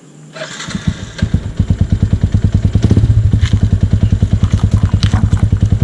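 Yamaha Sniper 150's single-cylinder four-stroke engine, fitted with an aftermarket Mody5 power pipe exhaust, starting up about half a second in and settling into a loud idle with fast, even exhaust pulses.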